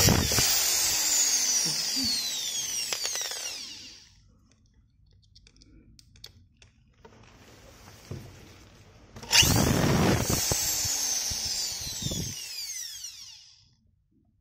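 A cordless drill drives self-drilling screws through a thin metal plate into a uPVC window profile in two runs of about four seconds each. The first ends about four seconds in; the second starts about nine seconds in. During each run the motor's whine falls in pitch as the screw drives in.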